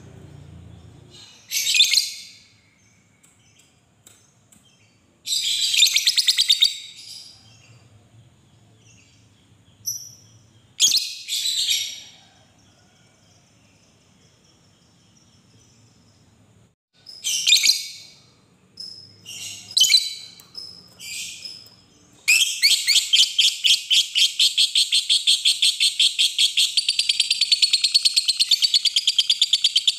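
Fischer's lovebird calling: several short, shrill chirp bursts, then about two-thirds of the way through a long, rapid, unbroken chattering trill. This is the 'ngekek panjang' long chatter that lovebird keepers prize.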